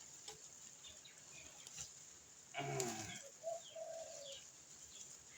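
Birds calling around a garden: faint short chirps, with a louder low call about two and a half seconds in, followed by a few short cooing notes.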